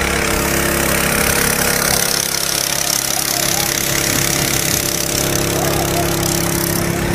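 An engine running steadily, with a loud hiss over it that stops just before the end.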